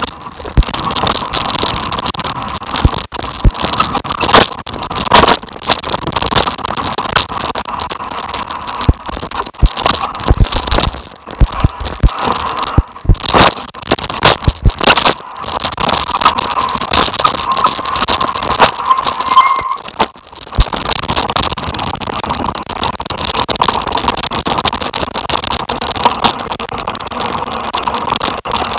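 A vehicle coming down a rough dirt trail: a steady running drone under frequent sharp knocks and rattles as it jolts over rocks and ruts.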